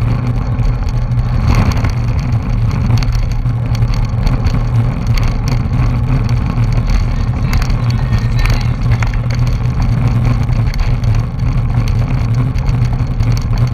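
Wind buffeting the microphone of a bike-mounted action camera, with tyre and road rumble from a racing bicycle in a pack: a loud, steady low rumble with a few brief knocks.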